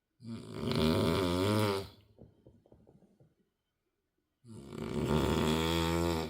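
A sleeping person snoring loudly: two long, buzzing snores about four seconds apart, each lasting nearly two seconds.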